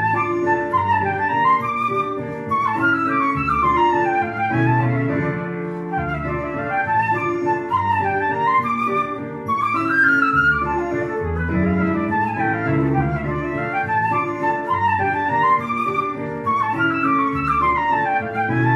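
Concert flute playing a melody of quick notes that run up and down in waves, over an accompaniment of sustained chords and a bass line.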